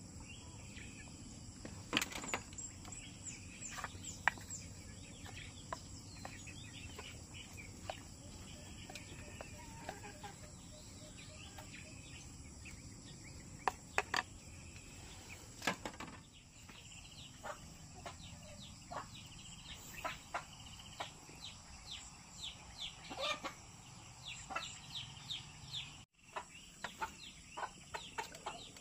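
Chickens clucking in short, scattered calls, with quick high chirps over a steady high insect drone. The sound cuts out for an instant near the end.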